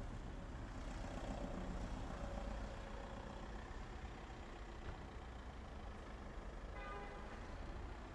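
Ambience of a quiet street: a steady low traffic rumble with a vehicle passing about a second in, and a short pitched tone, like a distant horn, near the end.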